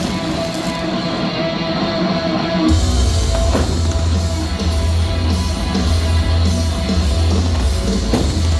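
Loud rock music with electric guitar, and a heavy bass line coming in about three seconds in.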